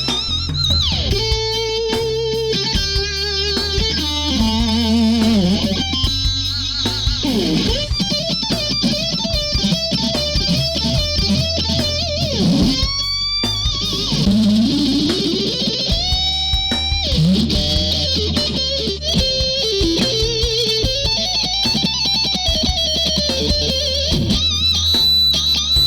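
Electric guitar played through the Brainworx bx_rockergain 100, a plugin emulation of an Orange amplifier, set to the plugin's Orange 4x12 cabinet with Cream speakers. It plays a lead melody with string bends, slides and vibrato over a steady low backing.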